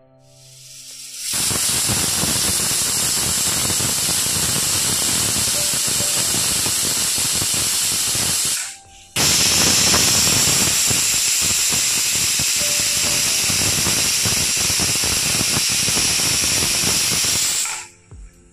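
Pressure cooker whistling twice: steam hisses out loudly past the weight valve for about seven seconds, stops briefly, then hisses again for about eight seconds. The two whistles signal that the pressure-cooked sambar is done.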